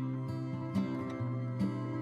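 Background music: gentle plucked notes over a held bass line.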